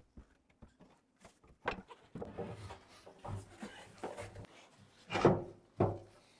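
Wooden sauna bench frame being handled and fitted into place: scattered knocks and wood-on-wood scraping, loudest a little after five seconds in.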